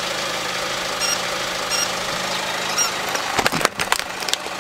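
Car engine idling steadily as the tyre rolls onto a white plush toy dog. A quick cluster of sharp cracks and crunches comes about three and a half seconds in as the toy is crushed under the wheel.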